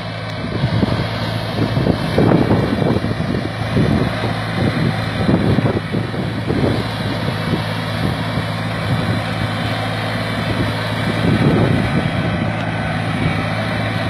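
Compact tractor's engine running under load as it drags a mouldboard plough through soil, its steady note broken by several rougher, louder surges.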